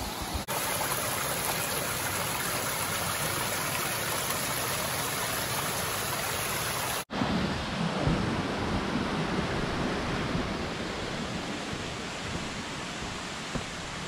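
A small mountain stream running over rocks, a steady even rush of water. About seven seconds in the sound cuts off for an instant and comes back duller and heavier, with irregular low bumps.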